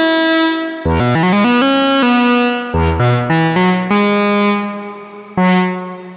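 Musonics Vanilla 5U modular analog synthesizer playing a single-voice lead line: quick rising runs of bright, buzzy notes, then a held note. Near the end a lower note starts bright and mellows as the filter closes.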